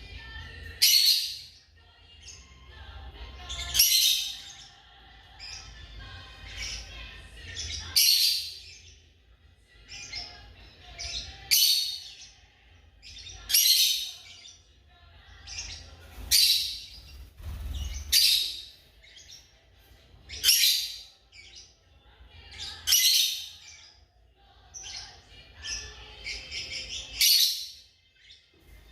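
African lovebirds calling: loud, shrill high-pitched calls about every two to three seconds, with softer chattering between them.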